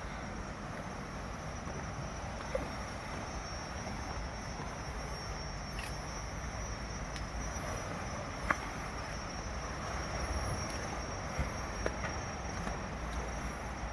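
Insects trilling steadily with one high unbroken tone, over a low even rumble, with a few faint clicks scattered through.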